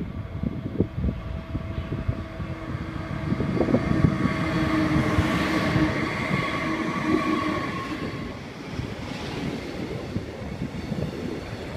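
Freight train hauled by an SBB Cargo Class 189 electric locomotive passing close by, with wheels knocking over the rail joints. The locomotive's steady electric hum of several tones swells to its loudest about four to seven seconds in as it goes by. It then gives way to the quieter rumble and clatter of the container wagons.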